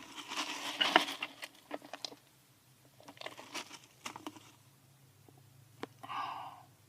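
Rustling and crinkling handling noise with scattered small clicks, in two bouts, then a short soft rustle near the end, in a small enclosed space.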